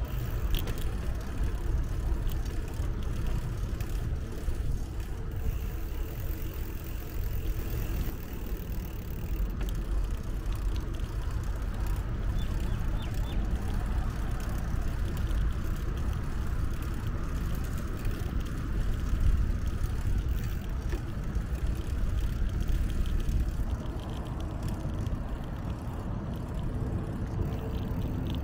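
Steady low rumble of road traffic passing, heard from a moving bicycle.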